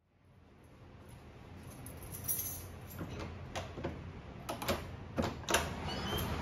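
Door lock and lever handle clicking and rattling as a wooden front door is unlocked and opened: a string of sharp clicks from about halfway, the loudest near the end, over a steady background hiss that fades in at the start.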